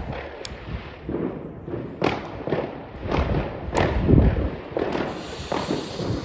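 Argento 'Neon Clouds' consumer firework firing a rapid string of shots, a thud or bang roughly every half second to second.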